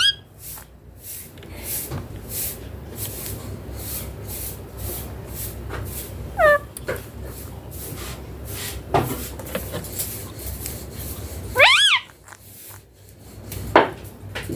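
Indian ringneck parakeet giving a few short whistled calls that bend up and down in pitch, one at the start, a couple in the middle and the loudest near the end, over faint repeated clicking.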